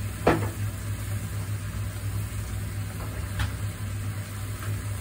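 Tomato and spice mixture simmering with a soft sizzle in a frying pan over a steady low hum, with a sharp knock about a quarter second in and a fainter tap about three and a half seconds in.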